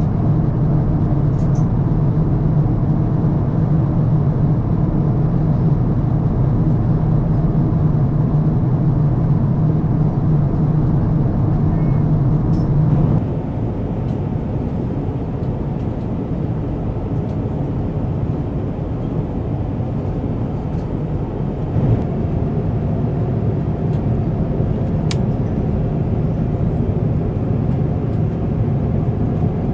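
Steady rumble of an Airbus A350-1000's jet engines and airflow heard from inside the passenger cabin. The level steps down abruptly about 13 seconds in, and there is a brief knock a little later.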